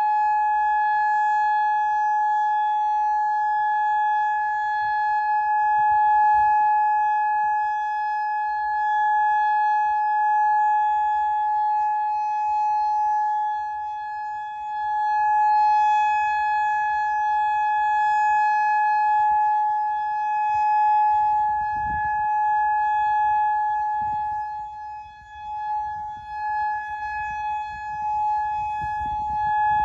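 Federal Signal Modulator electronic siren sounding a steady, unwavering tone for a test. Its loudness sags and recovers a couple of times, around the middle and near the end.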